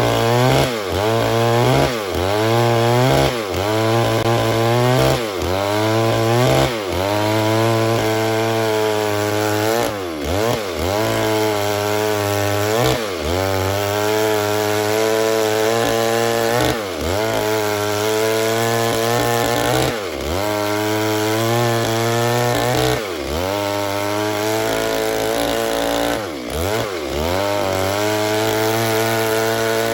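Stihl MS 382 two-stroke chainsaw running at high revs while cutting wood. Its pitch keeps dipping and climbing back as the chain loads in the cut, at first about once a second and later at longer intervals.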